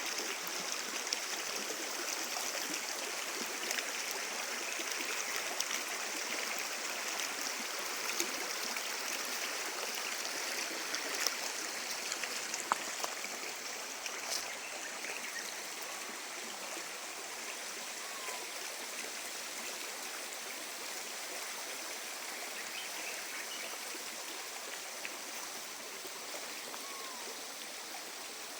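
Small river flowing over stones, a steady gurgling rush with frequent small splashes and trickles, slightly softer in the second half.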